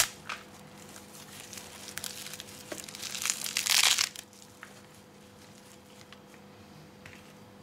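Bunch of fresh parsley rustling and crinkling as it is handled and dropped into a food processor bowl, in short bursts, the loudest about three to four seconds in, then quieter handling.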